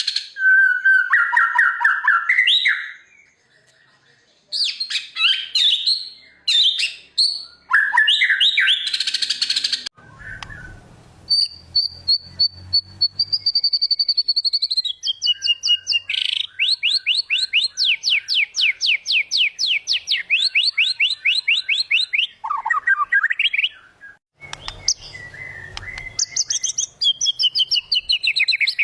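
White-rumped shama (murai batu) singing a varied song of whistled phrases, pitch glides and fast trills, including a long run of rapidly repeated notes. Short pauses fall between the phrases. It is a full, non-stop 'gacor' song with phrases mimicked from other birds.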